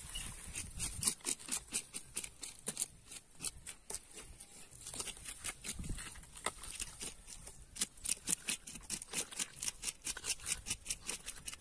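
Knife blade scraping the scales off a tilapia: a quick run of short rasping strokes, about three or four a second, in bursts with brief pauses.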